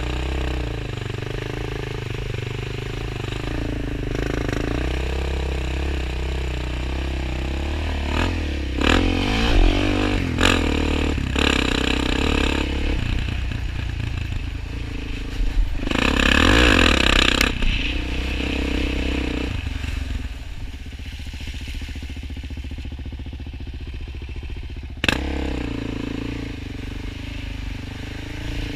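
Suzuki LT-Z 400 quad's single-cylinder four-stroke engine running under varying throttle, its pitch rising and falling with the riding, with water splashing around the quad as it crosses flooded track at first. Two louder, noisier stretches come about a third of the way in and just past halfway, the engine eases off for a few seconds after that, and a single sharp knock sounds about 25 seconds in.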